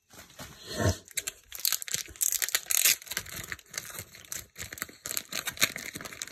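Clear plastic bag around a stack of trading cards crinkling and crackling as hands handle and pull it open, in an irregular run of sharp crackles.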